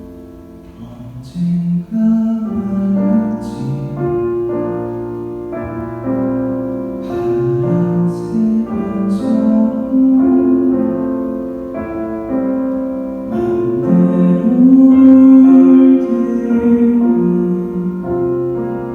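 A male vocalist singing a slow Korean ballad with piano accompaniment.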